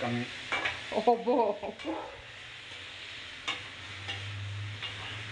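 Marinated chicken pieces sizzling as they fry in a steel kadai, with a few sharp scrapes and taps as they are stirred. A voice speaks briefly in the first two seconds.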